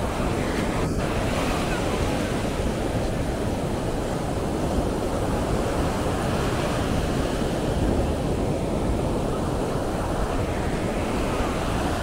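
Ocean surf breaking and washing up on a sandy beach, a steady rushing noise, with wind buffeting the microphone.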